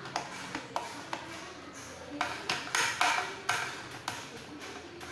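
Sharp plastic clicks and taps as hands handle the front wheel and suspension of an upside-down Subotech BG1522 RC jeep. A few scattered clicks at first, then a denser, louder run of clicks and rattles in the middle.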